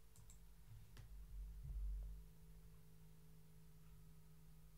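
Near silence: room tone with a faint steady hum and a couple of faint computer mouse clicks in the first second.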